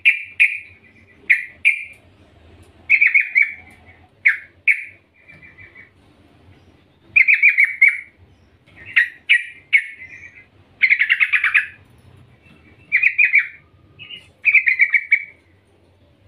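Yellow-vented bulbul (trucukan) calling: about a dozen short, bubbly phrases, each a quick run of notes, with a lull about six seconds in and the loudest phrase near eleven seconds. The uploader labels it a female calling to a male.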